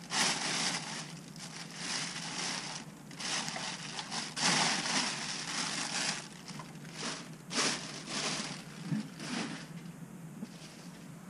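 Clear plastic packing bag crinkling and rustling in irregular bursts as it is handled and pulled off a weather station's sensor unit; it quietens over the last second or so.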